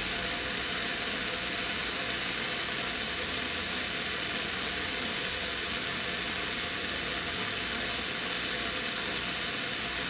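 Steady static hiss from a 1950s Loewe Opta Moderna tube radio's speaker, tuned between stations so that no broadcast comes through.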